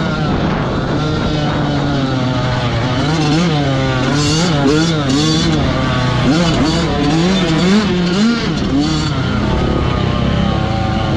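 Dirt bike engine revving hard and easing off again and again as the rider works the throttle around the track, its pitch climbing and dropping many times in a row.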